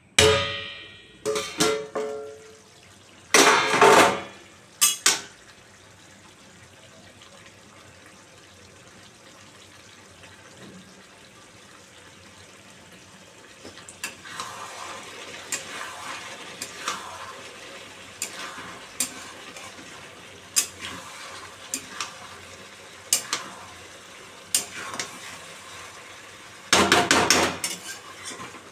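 Steel lid lifted off an iron kadhai with a ringing metal clang, followed by a few more clanks. Later a flat metal spatula scrapes and knocks against the kadhai while stirring chicken and onions over a light sizzle of hot oil, with a loud scrape near the end.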